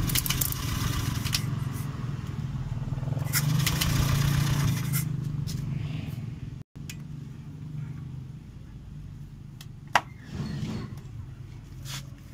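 Honda Vario 110's starter-generator spinning the engine over with a steady low whir for about five seconds without the engine catching, then stopping. This is a no-start that the mechanic traces to the crankshaft position sensor circuit (fault code 52). A single sharp click comes about ten seconds in.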